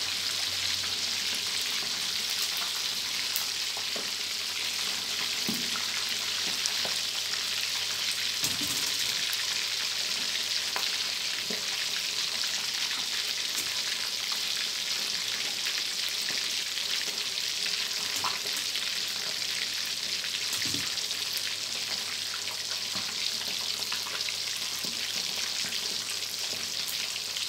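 Sun-dried red tilapia deep-frying in hot oil in a wok, a steady sizzling hiss with occasional light clicks and pops.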